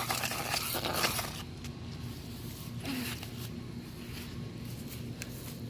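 Scraping and rustling handling noise in the first second and a half, with a few sharp clicks and a brief scrape near the middle, over a steady low hum.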